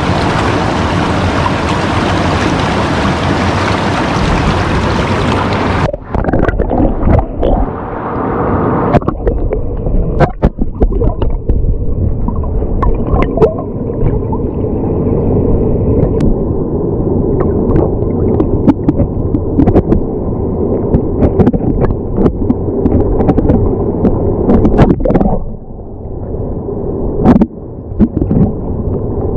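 Loud rushing, splashing water at the surface of a stream. It cuts off sharply about six seconds in, giving way to a muffled underwater gurgle with scattered clicks and knocks as the microphone goes under.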